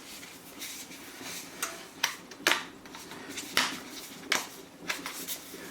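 Kitchen utensils handling a slice of bread being seasoned and cut: about nine irregular sharp clicks and short scrapes.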